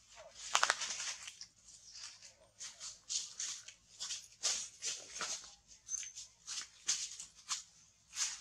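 A run of short, crisp rustling clicks, about two a second and irregular, the loudest about half a second in, with one brief high chirp about six seconds in.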